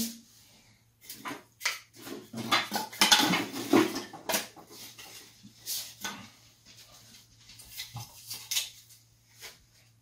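Sticks of kindling knocking and clattering as they are handled and laid into the open firebox of a wood-burning furnace, with a stretch of rustling about three seconds in. A steady low hum runs underneath.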